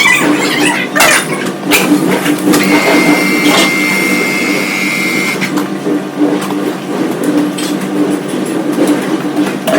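Metal lathe running with a steady hum, with a few sharp knocks in the first two seconds and a steady high whine for about three seconds from near the three-second mark.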